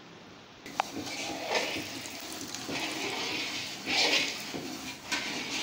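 Thick tamarind-and-apricot chutney bubbling and hissing in a metal karahi over the flame while liquid food colour is poured in, the hiss swelling in surges every second or so. A sharp click about a second in.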